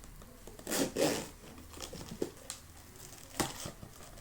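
Quiet crinkling and rustling of packaging as a toy pencil box is handled, loudest about a second in, with a couple of light clicks later.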